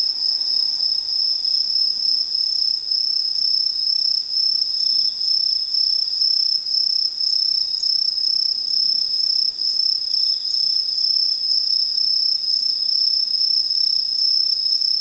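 Autumn night insects singing: one continuous, unbroken high-pitched trill, with a fainter, lower chorus of other insects pulsing beneath it.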